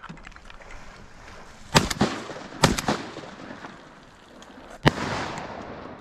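Shotgun shots at ducks: a loud blast about two seconds in with a smaller one close behind, another close pair just under a second later, and a last blast near five seconds, each trailing a rolling echo.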